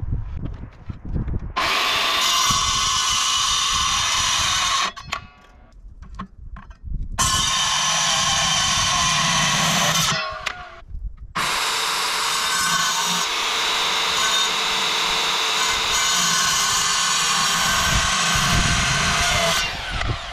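Handheld power saw with a metal-cutting blade cutting through steel frame tubing, three times: two short cuts of about three seconds each, then a longer cut of about eight seconds. Each cut ends abruptly.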